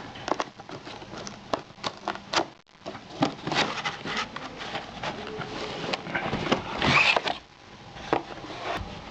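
Laptop packaging being handled and opened: irregular rustling, crackling and scraping with small knocks, loudest about seven seconds in.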